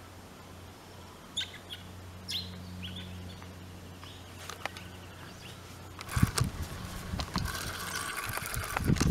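Wild birds calling: a few short, high, falling chirps over a low steady hum. From about six seconds in, loud rustling and knocks take over, the sound of the camera being handled.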